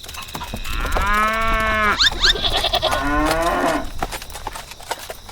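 Animal calls of a farm-livestock kind. There is one long, steady call about a second in, then short rising calls, then a shorter falling call near the middle, over a low rumble.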